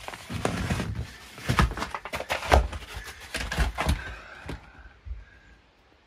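Knocks and thuds of the cabin's wooden door being opened and shut as someone comes in off the porch, several sharp hits over about four seconds, then it goes quiet and muffled inside.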